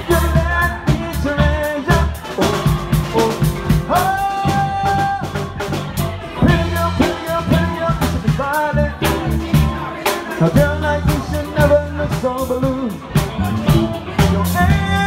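Live band playing an upbeat pop-funk song: drum kit keeping a steady beat, electric bass and electric guitar, with a male lead singer's vocal melody over them.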